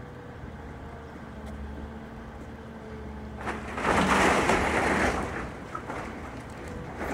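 Large excavator's diesel engine running steadily as it demolishes an old wooden barn. About halfway through, a loud rush of noise lasting about a second and a half rises over the engine.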